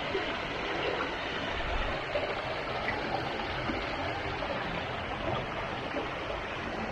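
A stream's running water, a steady rush with no break.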